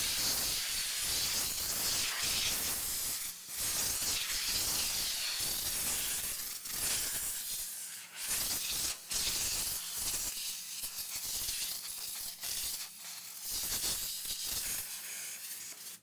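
Can of compressed air (air duster) hissing in long sprays with a few short breaks, blowing loose dust and debris off a mechanical keyboard's bare switches.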